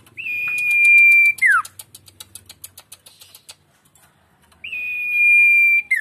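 Caged sirtu songbird whistling: two long, steady, high notes, each ending in a quick downward slur, with a rapid run of dry ticks between them.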